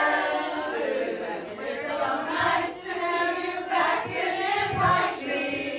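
A crowd of fans' voices overlapping, many people talking and calling out at once, excited.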